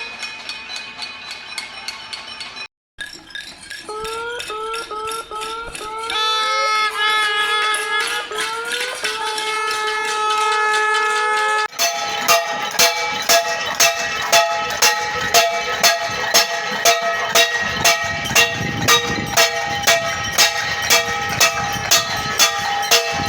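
Metal pots and pans banged in a steady rhythm at a noise protest (cacerolada), each strike ringing, with long held tones joining in the middle part. The sound cuts off abruptly twice, as at edits, and the strikes grow louder and about one to two a second in the last half.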